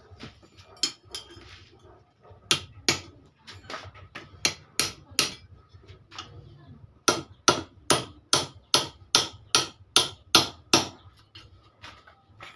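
Hammer striking an iron rod held in a small steel anvil block, bending it: a few light taps, then two runs of sharp metallic blows at about two and a half a second, with a short pause between them.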